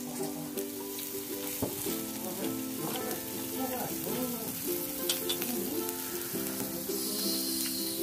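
Pork sizzling on a moo kata dome grill pan: a steady frying hiss, with faint held and bending musical tones underneath.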